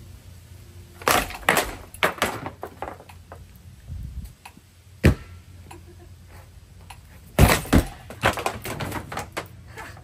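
Cheap ceiling fan clattering and knocking as it spins under abuse: a run of rattling knocks about a second in, one sharp knock near the middle, and a louder run of knocks near the end.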